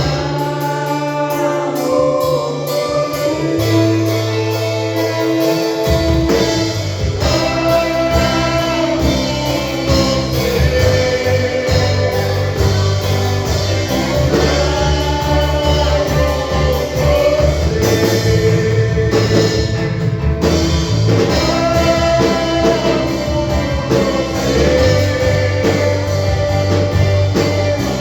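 Gospel band playing a song: a sung vocal melody over guitar and bass. The low end fills out about six seconds in.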